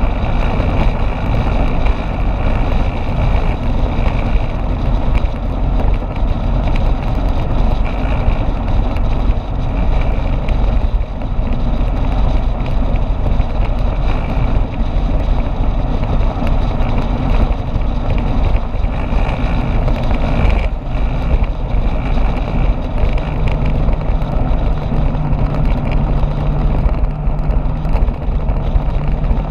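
Motorbike riding at speed: steady engine and road noise mixed with wind rushing over the action camera's microphone. A steadier low hum joins about three quarters of the way through.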